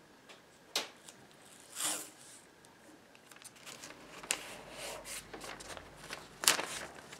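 Yellow masking tape pulled off its roll and torn, then a sheet of newspaper rustling and crinkling as it is taped around a table leg, with a few sharp crackles, the loudest near the end.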